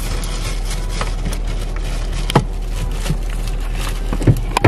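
Steady hiss and low hum inside a parked car, with scattered light clicks, a sharp knock about two and a half seconds in and a few more knocks near the end.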